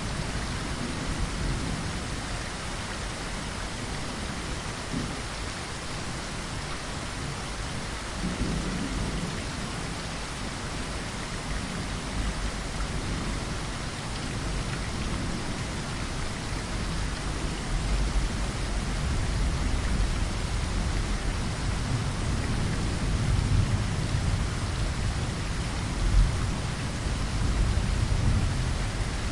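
Steady rain falling against a window pane, with low rolling thunder rumbling underneath that grows louder in the second half, peaking near the end.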